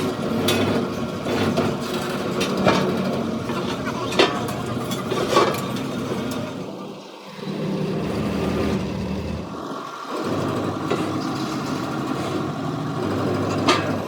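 A machine engine hums steadily, with a few sharp knocks over it. The hum dips out briefly twice, about seven and ten seconds in.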